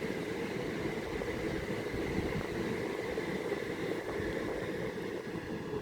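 Class 375 Electrostar electric multiple unit running past slowly: a steady rumble with a faint, steady high whine.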